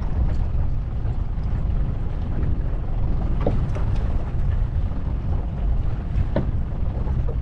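Wind buffeting the microphone, a loud, steady low rumble, with a few faint knocks about halfway through and again near the end.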